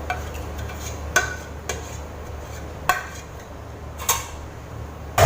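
A spoon clinking against a cooking pot five or six times at irregular intervals as sauce is spooned over biryani rice, over a steady low hum.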